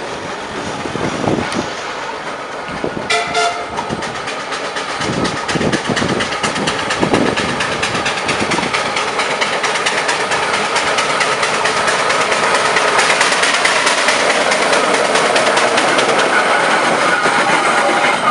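Steam traction engine coming up the road and passing close by, a dense rapid clatter of its working motion and wheels that grows louder as it nears. A short toot sounds about three seconds in.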